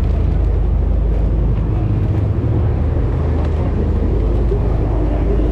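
Fishing boat's engine running steadily under way: a loud, even, low drone.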